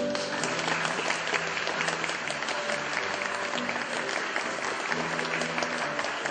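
Audience applauding, the clapping starting suddenly at the start as a song finishes, with backing music still playing faintly underneath.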